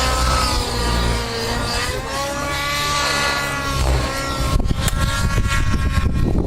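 Radio-controlled model helicopter whining overhead, its pitch rising and falling as it manoeuvres; from about four and a half seconds in, gusty wind on the microphone takes over.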